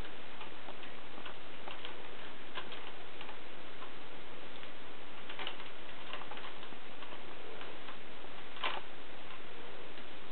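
Kittens climbing a carpeted cat tree: light, irregular clicks and scratches from their claws, with one louder click about eight and a half seconds in, over a steady hiss.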